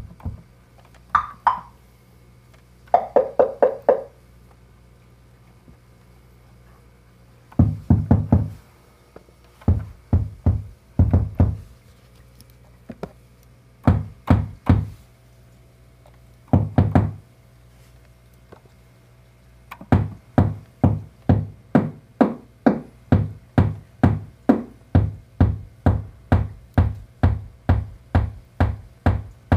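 Make Noise 0-Coast synthesizer playing a percussive patch: short synthesized drum hits. A few higher, wood-block-like hits come first, then deep tom-like hits in short clusters that settle, about two-thirds of the way in, into a steady beat of roughly two hits a second.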